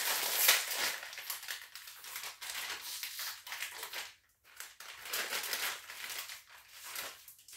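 Plastic bag of Blow Pop lollipops crinkling and crackling as it is handled and opened, in irregular stretches with a short break about four seconds in.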